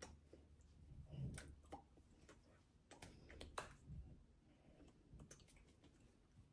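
Near silence: a faint room hum with scattered soft clicks and rustles from a person signing, as her hands touch and her clothing moves.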